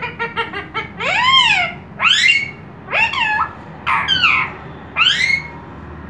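Indian ringneck parrot calling: a quick chatter of short notes at the start, then five drawn-out calls about a second apart, each rising then falling in pitch.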